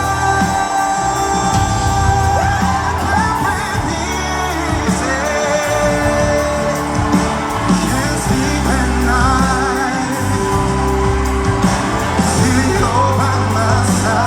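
A pop song played back, a singer with a wavering, held voice over a band with a steady bass line.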